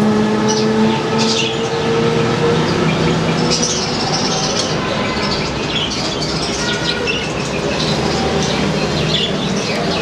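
Caged budgerigars chattering and chirping, many birds at once, over a steady low hum that fades out in the first few seconds.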